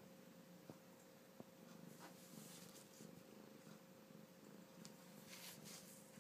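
Domestic cat purring faintly and steadily.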